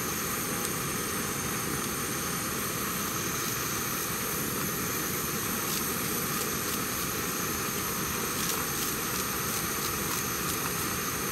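Portable gas camping stove burning with a steady roar under a pot of kalguksu broth. Faint snips of kitchen scissors cutting garlic chives into the pot come through in the middle and toward the end.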